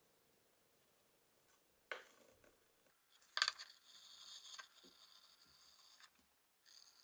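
Faint handling noise at a workbench: a single tap about two seconds in, then about three seconds of light scraping with a thin high hiss, and a short rustle near the end.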